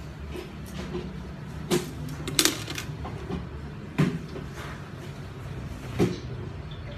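Several separate sharp knocks or clacks over a steady low hum, with a quick cluster of two or three about two and a half seconds in.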